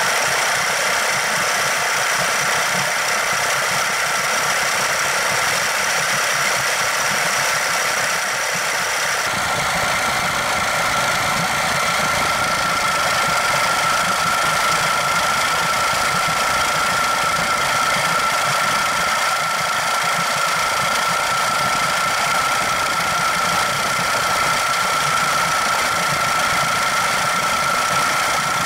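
Yamaha 6E9 40 HP two-stroke outboard engine, cowling off, running steadily at a constant speed. A steady high whine rides over it and shifts to a lower, stronger tone about nine seconds in.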